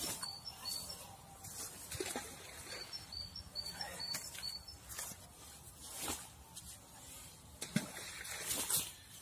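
Tits singing short, high, repeated notes through the first half, over rustling and handling noise as a groundbait ball is squeezed by hand. There are a couple of louder sharp knocks near the end.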